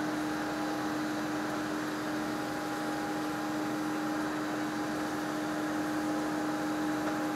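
Steady machine hum: an even hiss with a constant mid-pitched tone that holds unchanged throughout.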